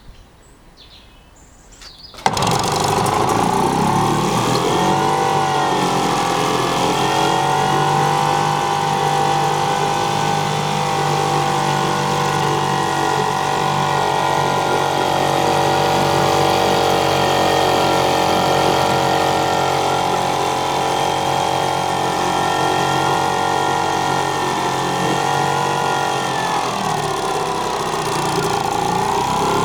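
Seagull 40 Plus Mk II 64 cc two-stroke outboard motor pull-started with the choke off, catching with a sudden start about two seconds in and then running steadily. Its speed wavers briefly around six seconds in and picks up again near the end.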